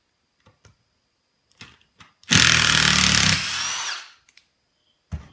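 Milwaukee M18 Fuel cordless impact driver running for about two seconds as it drives a screw into lumber, loud at first and easing off near the end.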